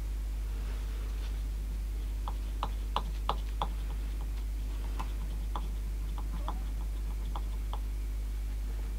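Light, irregular clicks and ticks of a cotton bud scrubbing and knocking against a cassette deck's small plastic motor pulley and mechanism, cleaning off sticky residue left by a perished rubber belt. About a dozen clicks, starting about two seconds in, over a constant low hum.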